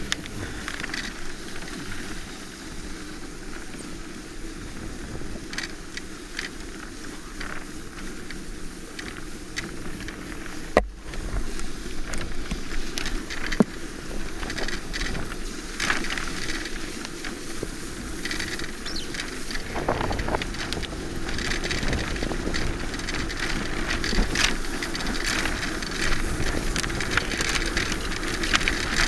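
Land yacht running fast over hard beach sand: wind rushing past and the wheels rumbling with a steady hum, and scattered clicks and rattles from the frame, with a couple of sharp knocks midway. It grows louder in the second half.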